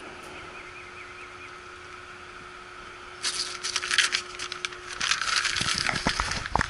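Faint steady hum for the first three seconds, then crinkly rustling of a paper packing sheet and plastic wrap handled by hand over a new condenser coil, lasting about three seconds.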